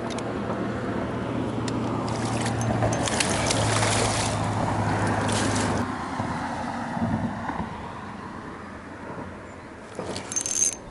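Motorboat engine hum with water and wind noise, swelling around four seconds in, dropping slightly in pitch as it passes, and fading by about six seconds. A few sharp clicks come near the end.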